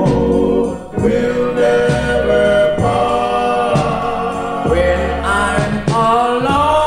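Doo-wop vocal group singing a slow ballad in close harmony, holding long chords that change every second or two over a steady bass line.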